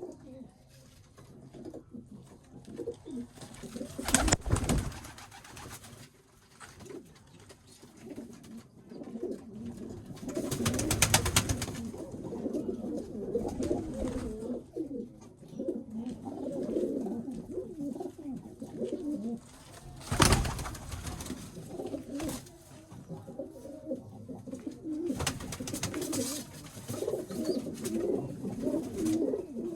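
Domestic pigeons cooing continuously in a small room, several birds overlapping, with a few short louder noisy bursts in between.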